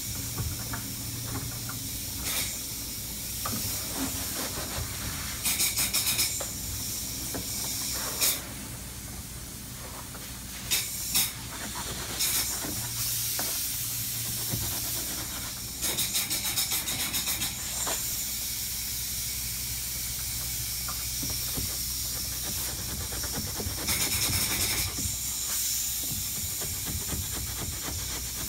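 Open-cell spray foam gun hissing as it sprays foam, with repeated louder bursts of a second or two as the trigger is pulled, over a steady low hum.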